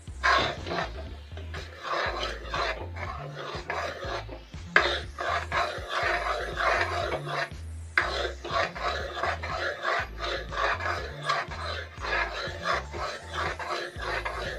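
Metal spatula scraping and stirring gram flour roasting in ghee in a metal kadai: a fast, continuous run of rasping scrapes against the pan. Background music with a steady bass line plays underneath.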